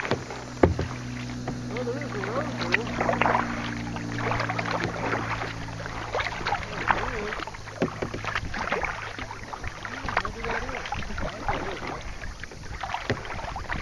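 Kayak paddle strokes dipping and splashing in the water, with drips and irregular splashes and a sharp knock about half a second in. A low steady hum runs underneath for the first five seconds or so, then fades.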